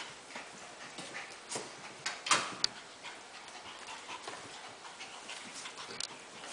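Havanese puppies playing on a hardwood floor: scattered scratches and taps of small claws and paws, with one louder sharp sound a little over two seconds in.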